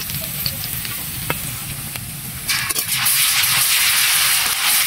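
Sliced garlic frying in hot oil in an iron wok, sizzling steadily, then the sizzle jumps suddenly much louder about two and a half seconds in and stays loud.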